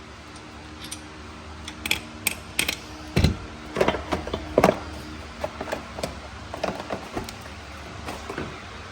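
Hand-tool work on metal fasteners: irregular clicks, clinks and knocks as nuts and heat-shield fasteners are undone, busiest about three to five seconds in. A steady low hum runs underneath.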